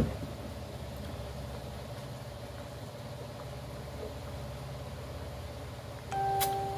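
A steady low hum of background machinery. Near the end a brief held tone comes in, with one sharp click.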